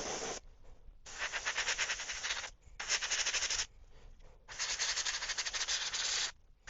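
Airbrush spraying paint in short bursts of hiss, several passes of about one to two seconds each with brief pauses between.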